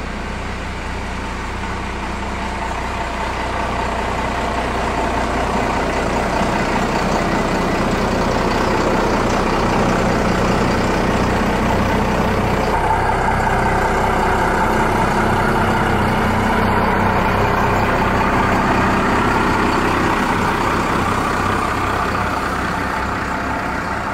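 First-generation Dodge Ram 250 pickup's engine running as the truck backs out and drives off. It grows louder over the first several seconds and eases off slightly near the end.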